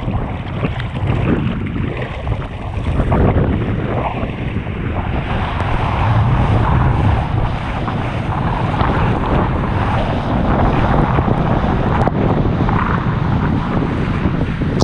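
Wind buffeting the camera microphone over the rush and splash of water off a kiteboard skimming across the sea, a steady loud noise with no letup.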